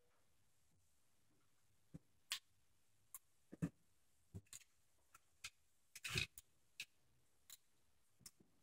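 Small plastic Lego pieces clicking and tapping as they are handled and snapped together: a dozen or more scattered sharp clicks at an uneven pace, the loudest a short cluster about six seconds in.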